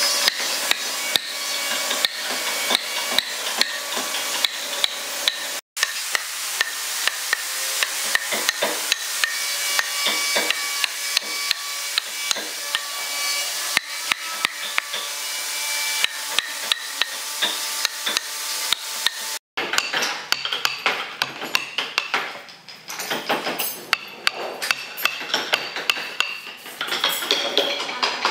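Small carving axe chopping repeatedly into a block of wood, about two strikes a second, splitting chips off along scored cuts.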